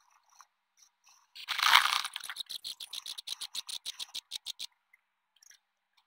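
Sped-up scuffling and scraping in a robin's grass nest as a black snake works at swallowing a nestling: a loud rustling bump about a second and a half in, then a quick, even run of short clicks, about eight a second, that stops near the end.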